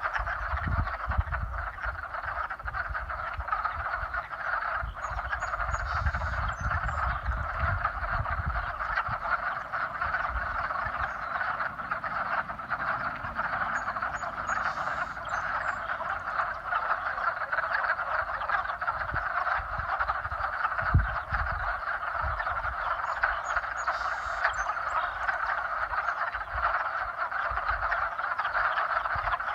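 Breeding chorus of many frogs calling at once in spring, a dense, unbroken din of overlapping calls. A low rumble comes and goes underneath.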